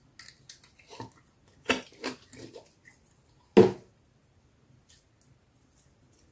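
Pink slime squelching as it is worked out of a small plastic jar by hand: a few soft squishes, then one loud squelch about three and a half seconds in.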